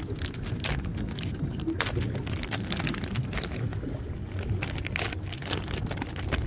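Plastic soft-bait package crinkling and crackling in gloved hands as a soft plastic worm is taken out, over a low rumble of wind on the microphone.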